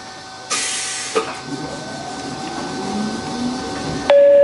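Electric train pulling away from a station: a short hiss of air about half a second in, then a clunk, and the traction motors' low whine rising as it gathers speed, over a steady electrical hum. Near the end a two-tone chime sounds, the opening of the onboard automatic announcement.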